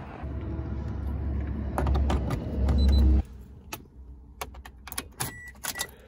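Plastic ice scraper rasping over a frosted windshield under a low rumble of wind or handling noise, cut off suddenly about three seconds in. Then light clicks and key jingles, with two short high beeps near the end.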